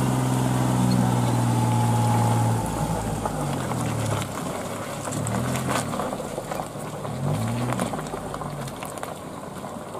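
Daihatsu Xenia MPV's engine running at low speed as the car pulls through deep mud, steady at first, then rising and falling in pitch a few times as the driver works the throttle, growing fainter as the car moves away.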